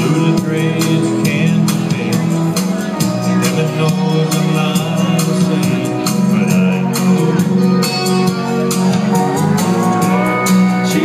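Up-tempo dance music with a steady drum beat and held instrumental notes.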